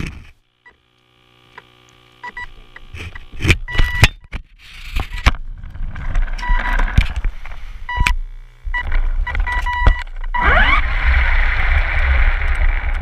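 Electric RC car running hard: knocks and clatter from the chassis as it bumps along, with short steady electronic tones, then about ten seconds in the motor whines rising in pitch as the wheels spin up to full speed, so fast the tyres balloon.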